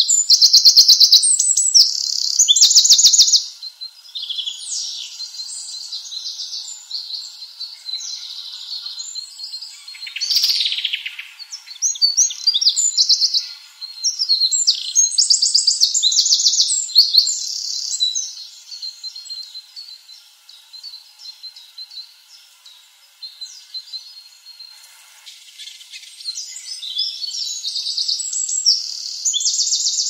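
Small songbirds singing high, thin, rapidly trilled phrases, several songs overlapping. The song is loudest in the first few seconds and thins out past the middle.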